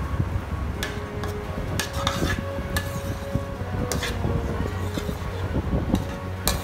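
A perforated metal ladle knocking and scraping against a stainless steel pan as a thick tamarind paste with curry leaves is stirred. The clinks come irregularly, about half a dozen, over a steady low background.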